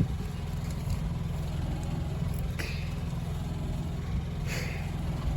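Steady low motor hum, typical of a food truck's engine or generator left running. Two brief hissy sounds come through, about two and a half and four and a half seconds in.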